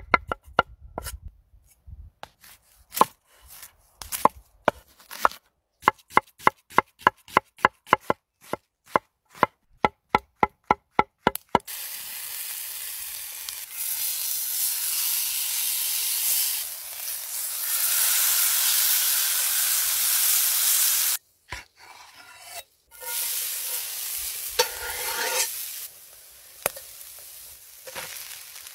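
A hand-forged kitchen knife chopping garlic on a wooden cutting board: quick, sharp, even chops, about two to three a second. About halfway through, a loud steady sizzle of food frying in a hot cast-iron pan takes over and breaks off briefly before it starts again.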